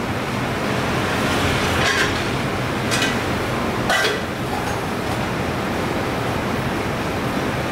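Steady background rumble like passing road traffic, with three light clinks of tableware about a second apart.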